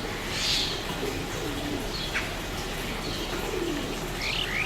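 Birds calling: a dove cooing low several times, with short high chirps and slurred whistles from other birds over a steady background hiss.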